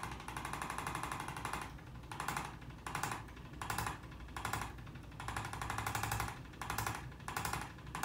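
Corded handheld electric chiropractic adjusting instrument tapping rapidly against the lower back. It goes in a long run at first, then a string of short bursts about two-thirds of a second apart, then another long run a little past halfway, followed by more short bursts.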